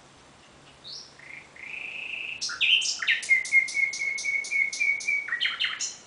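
Common nightingale singing one phrase that starts about a second in: a few short notes and a long held whistle, then a fast run of loud repeated notes at about five a second, ending in a few sharp notes.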